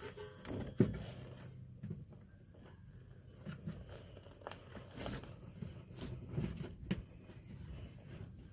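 Scattered clicks, knocks and rustling from hands working a folded rubber air bag, held with zip ties, up into a truck's rear coil spring, over a faint steady low hum.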